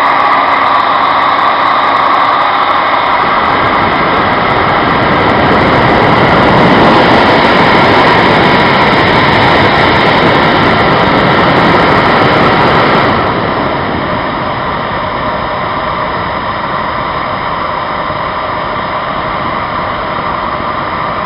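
Hair dryer running with a steady blowing whir. About 13 seconds in, it drops to a quieter, duller level and keeps running steadily.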